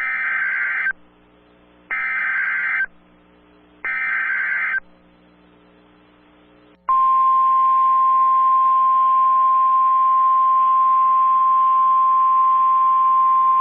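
Emergency Alert System SAME header: three short, harsh data bursts of about a second each, a second apart. About seven seconds in, the NOAA Weather Radio 1050 Hz warning alarm tone starts and holds steady and loud. This tone sequence signals the start of a new emergency alert broadcast.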